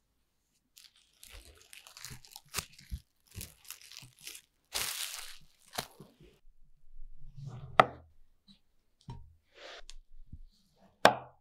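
Plastic cling film crinkling and tearing as a loaf cake is wrapped, then a knife slicing through the cake, with two sharp knocks of the blade on a wooden cutting board, the loudest near the end.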